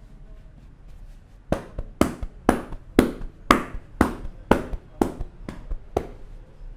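Rhythmic percussive hand strikes on the head during an Indian head massage, about two sharp slaps a second with lighter taps between, starting about a second and a half in and stopping near the end.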